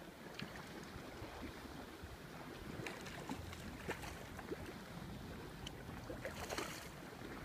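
Wind and lapping sea water with scattered light clicks, and about six seconds in a short splash as a hooked fish thrashes at the surface while being reeled in.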